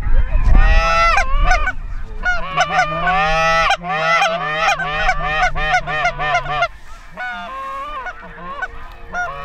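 A flock of snow geese calling: many short, high yelping honks overlapping one another, thinning out over the last couple of seconds.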